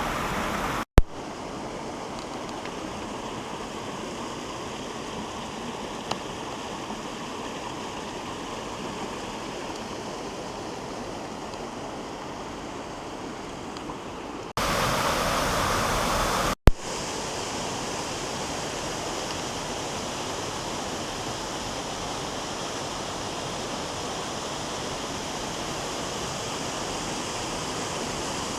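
Steady rushing of a waterfall and creek running full with monsoon runoff. The level jumps abruptly a few times, with a sharp click at each jump.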